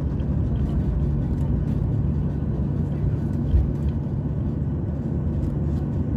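Boeing 737-800's CFM56-7B turbofan engines at low power, heard inside the cabin as the airliner taxis onto the runway: a steady low hum with a constant tone and faint scattered clicks.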